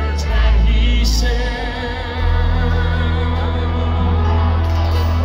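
A country band playing live through a concert PA, with a steady bass line, guitar and a singing voice. It is heard from the crowd, so the sound is full of the big room and the amplification.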